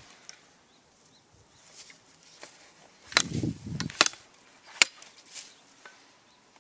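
Old Finnish Billnäs billhook chopping at a thin wooden stick: three sharp chops, a little under a second apart, starting about three seconds in, with some rustling after the first.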